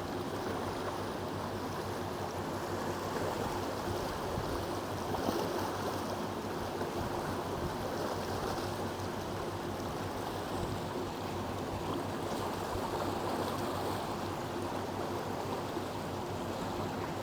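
Lech River current rushing steadily below a hydroelectric dam: a strong, even flow of water.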